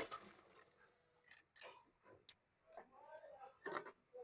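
Near silence with a few faint clicks and soft knocks.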